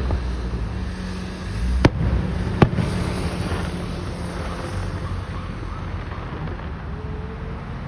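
Fireworks going off: two sharp bangs about two seconds in, less than a second apart, followed by fading crackle, over a steady low rumble.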